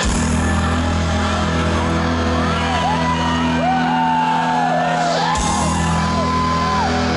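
Live metal band heard from among the crowd through the festival PA: held low bass and synth tones with shouts and whoops from the audience over them.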